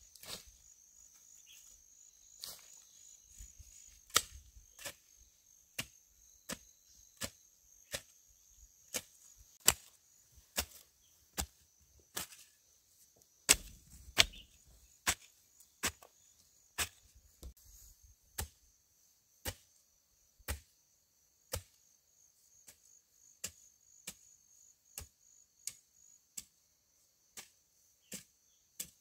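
Sharp chopping strikes at an even pace, a little more than one a second, some harder than others. Insects trill steadily and high behind them.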